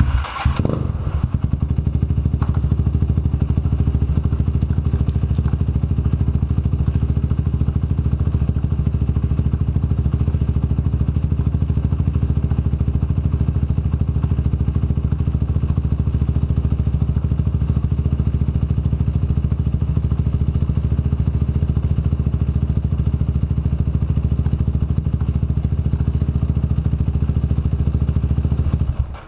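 Yamaha YFZ450's single-cylinder four-stroke engine starting up, then running steadily at idle in first gear, turning the rear chain and axle with the wheels off the ground. It cuts off abruptly at the end.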